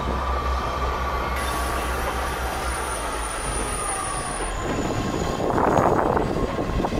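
A train running slowly on the adjacent main line: a low engine rumble with thin, high, steady squealing tones, typical of wheels or brakes squealing. From a little past halfway, an irregular rushing noise takes over and grows louder.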